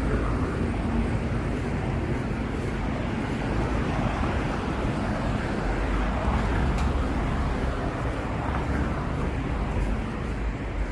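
Street ambience dominated by steady road traffic, the low rumble of cars passing, with a faint click about seven seconds in.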